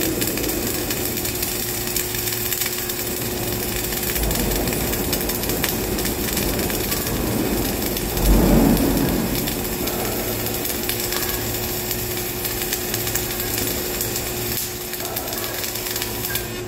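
Flux-cored arc welding on a vertical butt joint: the arc crackles and sizzles steadily over a steady hum, with a brief louder low surge about eight seconds in. The arc stops near the end.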